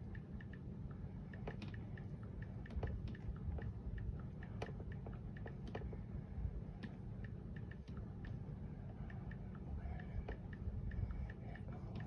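Quiet handling of a paperback coloring book's pages, with a few louder clicks among them, over a faint, fast, regular ticking and a low steady hum.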